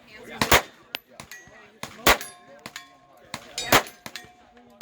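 Gunshots on a shooting range: three loud shots about a second and a half apart, with fainter shots in between.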